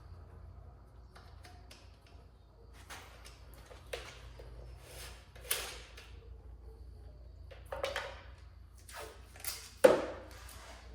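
Hands working with painter's tape and wiring: rustles and light clicks, with a few sharper tearing or crinkling sounds from the tape, the loudest near the end. A faint steady low hum lies beneath.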